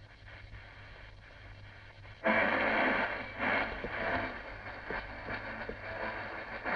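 Shortwave static from a Philips DL225 portable radio's speaker while the tuning knob is turned: a faint hiss, then about two seconds in a sudden jump to a loud rushing noise.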